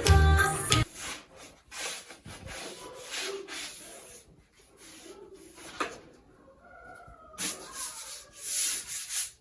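Music cuts off within the first second, then a series of short, irregular rubbing and scraping noises.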